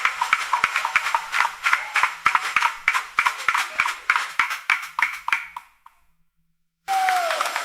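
Busy marketplace crowd ambience, a dense clatter of knocks and clicks over the crowd. It fades out after about five seconds, goes silent for about a second, and starts again abruptly.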